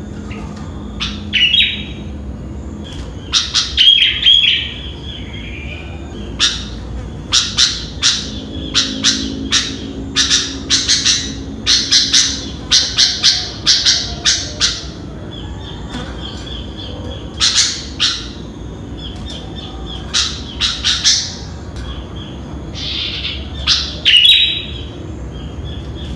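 Sooty-headed bulbul (kutilang) calling: short, sharp chirps in quick runs of several a second, broken by a few brief gliding phrases.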